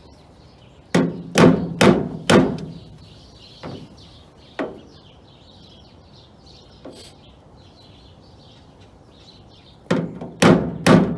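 Steel body dolly knocking against the edge of a 1967 Camaro's sheet-metal door: four sharp strikes about a second in, two lighter taps a little later, and three more strikes near the end. The knocks push a low, rolled-over edge of the door back up so that it is straight.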